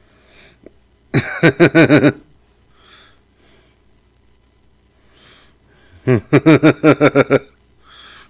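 A man laughing in two bursts of quick, pulsing laughs, the first about a second in and the second about six seconds in, each lasting about a second.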